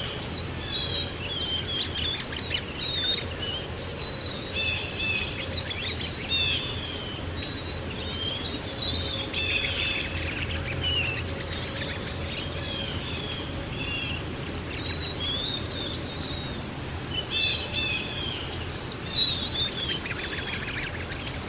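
Many small songbirds chirping and trilling, several calls overlapping, over a steady low background rush.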